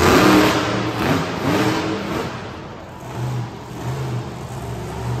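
Monster truck engine revving hard, loudest in the first second or so, then easing off, with shorter revs after.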